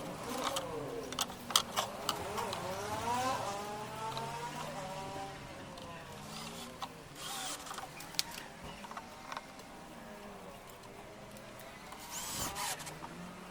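A small electric power tool, such as a drill, running with its motor pitch rising and falling as its speed changes, among sharp clicks and knocks.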